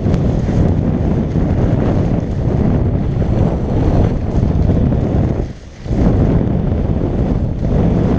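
Steady wind noise buffeting the microphone of a skier's point-of-view camera during a fast downhill run, dropping away briefly about five and a half seconds in.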